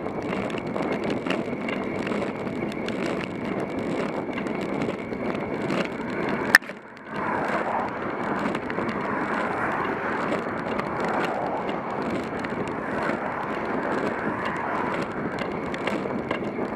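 Steady rolling rumble and hiss of a road bicycle climbing slowly, with wind on the bike-mounted camera's microphone. A sharp click comes about six and a half seconds in, then oncoming cars go by in the other lane.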